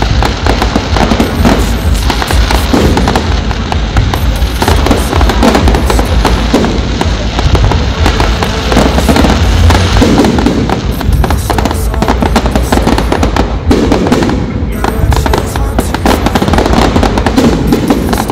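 Fireworks display: dense, continuous crackling and popping of bursting shells over low booms.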